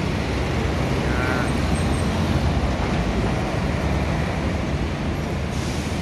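A flatbed truck's engine running steadily as the truck pulls away, with road traffic noise around it.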